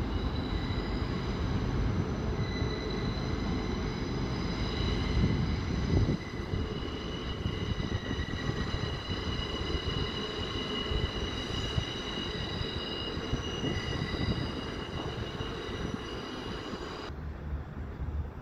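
Wheels of an LNER Azuma train squealing as it pulls away around a curve, several high sustained squeal tones over a low rumble. The sound changes abruptly near the end to a quieter, duller rumble.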